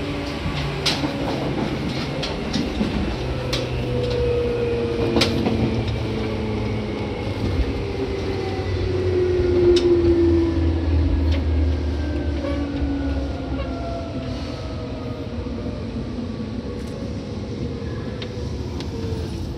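Seibu 2000 series electric train running on the rails, with a few sharp clicks. Its motor and gear whine slowly falls in pitch as the train slows.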